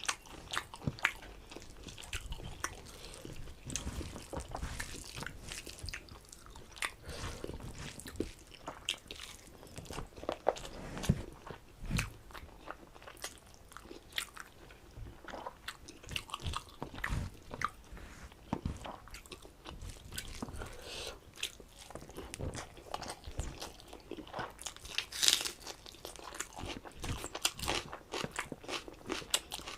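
Close-up eating sounds: chewing and crunching of rice with mutton curry, with irregular wet clicks and crackles of the mouth.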